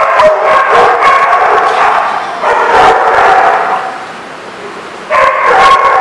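Dogs vocalizing during rough play-fighting, pitched calls coming almost without pause, easing off for about a second around four seconds in, then loud again.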